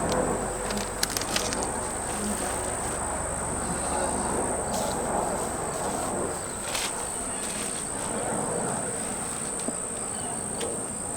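Buckfast honeybees buzzing around an open hive, a steady calm hum rather than the angry buzz of a disturbed colony, with a constant high, thin insect chirr above it. A few light clicks come about a second in, around five seconds in and around seven seconds in.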